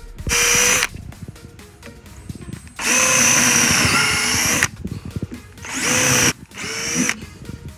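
Power drill boring pilot holes into a wooden 2x4 brace with a twist bit, in four runs: a short one, a long one of nearly two seconds in the middle, and two short ones near the end. The motor's whine dips briefly in pitch during the long run.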